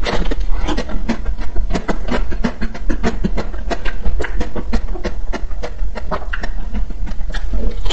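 Close-miked biting and chewing of a shell-coated ice cream bar: a bite through the frozen coating, then a dense run of crisp crackles and crunches, several a second, as the mouthful is chewed.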